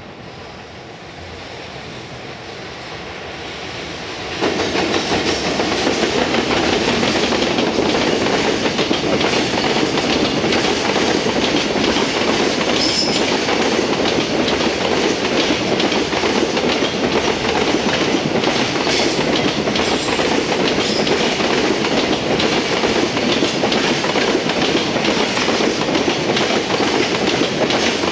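JR Freight EF210 electric locomotive hauling a container freight train, growing louder as it approaches and then jumping sharply in level about four seconds in as it comes close. After that the container wagons roll past with a steady rumble of wheels on rail and a constant clickety-clack.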